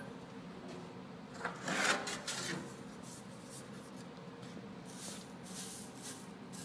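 Grain sample rubbing and scraping in a sheet-metal tray, with a louder scraping rush about two seconds in, then softer swishes as a hand rakes through the seeds.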